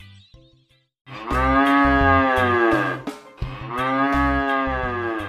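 Cattle mooing: two long moos, the first starting about a second in and the second about three and a half seconds in, each lasting about two seconds and dropping in pitch at the end.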